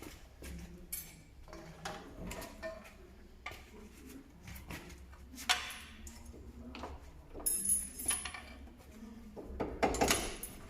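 Scattered metallic clinks and knocks of tools and parts being handled while a car's driveshaft is worked loose, with a sharper knock about halfway through and a burst of clatter near the end.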